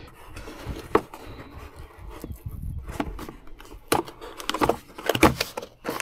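Handling noises: scattered clicks, knocks and rustles as a cardboard parts box is picked up and opened.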